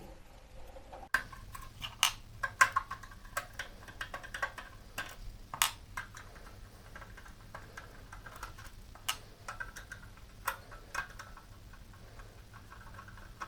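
Screwdriver undoing the screws that hold the power supply at the rear of a small-form-factor desktop PC case: a run of irregular small clicks and ticks of metal on metal.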